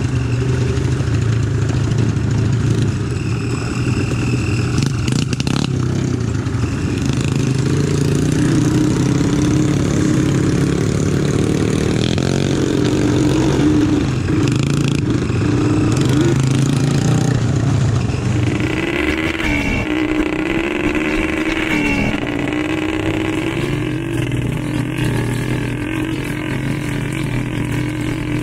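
ATV (quad bike) engine running as it is ridden along a dirt trail, its pitch rising and falling with the throttle. A little past the halfway point the sound changes to another ATV engine revving close by, its pitch swinging up and down.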